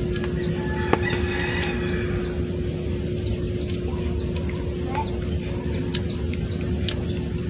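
Chickens clucking, with a rapid run of short, high, falling chirps over a steady low rumble and hum. There is a single sharp click about a second in.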